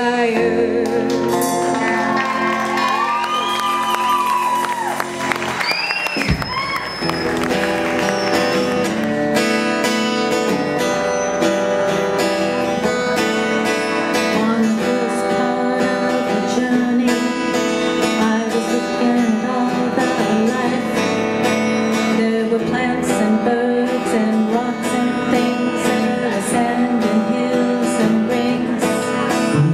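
Live rock band with acoustic guitar, bass guitars, drums and keyboard, with singing. For about the first six seconds it plays held notes under high sliding tones that rise and fall. Then a sharp hit brings the drums and full band in with a steady beat.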